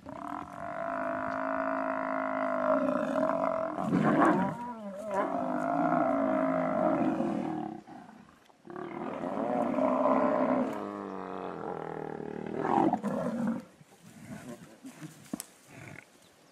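Cape buffalo bellowing in distress while lions pull at it: two long, drawn-out calls, the first broken by a harsh rasp about four seconds in. Quieter scuffling sounds follow near the end.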